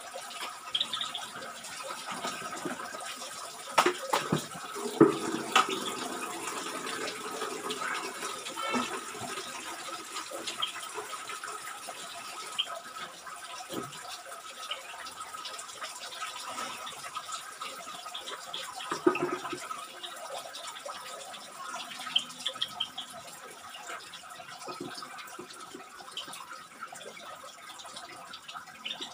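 Aviary ambience: a steady watery-sounding background with a few short, high bird chirps scattered through it, and a cluster of sharp knocks about four to six seconds in.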